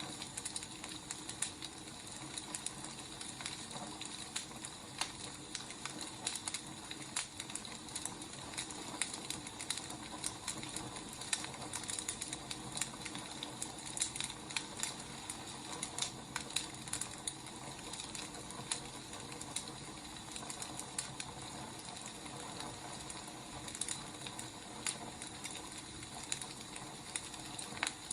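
Wood fire crackling: frequent irregular pops and snaps over a steady soft hiss.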